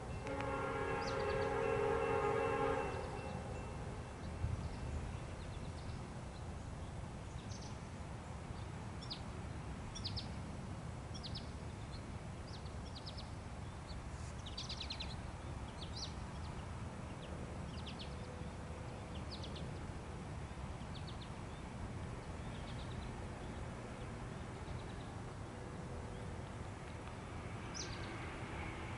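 A locomotive air horn sounds a chord of several notes that stops about three seconds in. Then a bird chirps again and again over a low steady rumble, and the horn sounds faintly again near the end.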